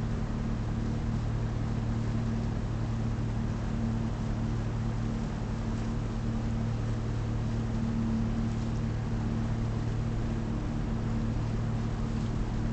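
Motorboat engine running at a steady speed while the boat is underway, a constant low hum that neither rises nor falls.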